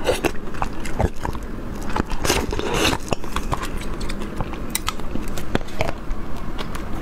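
Close-miked eating: biting and chewing food with crunchy, wet mouth clicks, and a longer noisy smack about two and a half seconds in.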